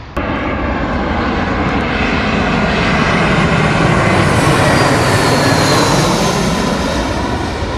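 Twin-engine jet airliner on final approach to land, passing low overhead: jet engine noise swells to its loudest about halfway through and then eases, with a high whine that drops in pitch as it goes over.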